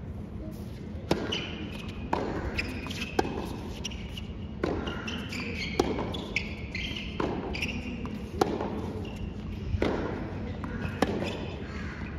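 Tennis ball struck back and forth by rackets in a baseline rally on a hard court, giving a sharp pock about every second and a quarter, about nine hits in all.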